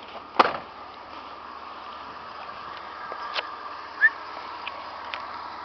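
A van door shut firmly about half a second in, then a steady background hum with a few light clicks and a short rising chirp about four seconds in.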